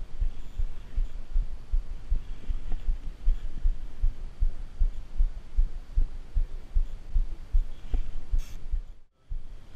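Spinning reel being cranked, its faulty mechanism knocking as the handle turns: a rapid, uneven run of low thumps, with one sharper click near the end.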